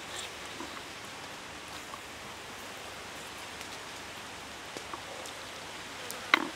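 A steady, even hiss like rain or running water, with a few faint ticks and one sharp click near the end from handling the raw chicken leg and a chilli-filled shell over a wooden board.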